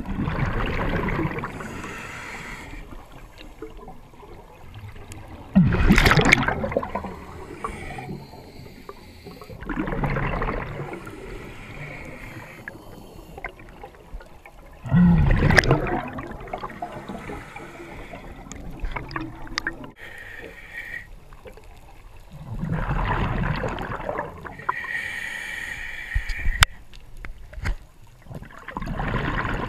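A diver's slow breathing in the water: a rush of air and bubbles every few seconds, a few of them louder, with gurgling water between breaths.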